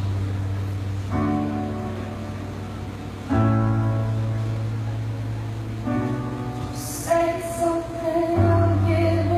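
Piano playing slow, sustained chords, a new chord struck about every two seconds. A woman's voice begins singing over it about seven seconds in.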